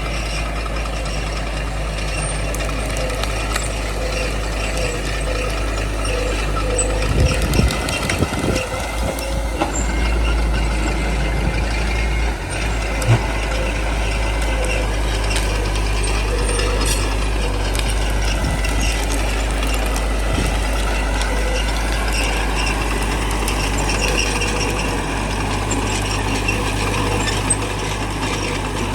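Small diesel bulldozer running steadily under load with mechanical clanking, its engine note sagging and recovering about 17 and 21 seconds in. Low thumps come about seven to nine seconds in, with a sharp knock about thirteen seconds in.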